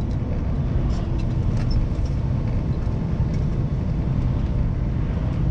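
Steady rumble inside the cab of a Scania V8 lorry on the move: engine and road noise heard from the driver's seat.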